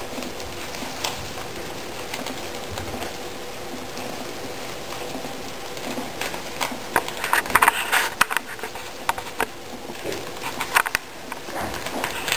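Guinea pigs munching leafy greens and carrot tops: a run of small crunches and leaf rustles, busier and louder from about the middle on.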